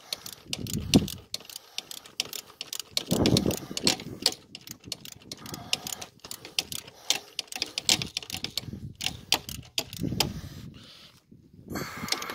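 Ratchet socket wrench clicking in irregular runs as bolts on the belt tensioner are worked, with a few dull knocks of tools and hands against the engine.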